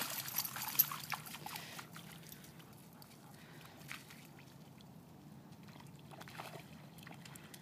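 A black Labrador splashing as it wades through shallow pond water at the edge. The splashing is loud for about the first two seconds, then drops to faint sloshes and small ticks.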